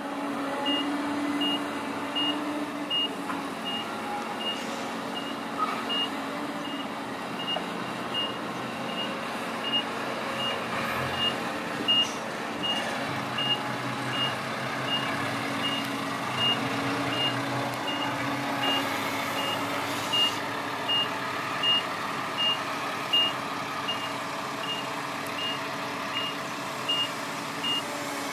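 A dump truck's reversing alarm beeps steadily at an even pace over its diesel engine running.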